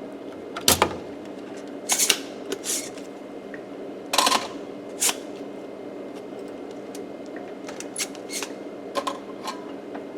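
Sharp clicks and taps of desoldering work on a circuit board as solder is cleared from the vias, about ten spread irregularly and the loudest about a second in, over a steady low hum.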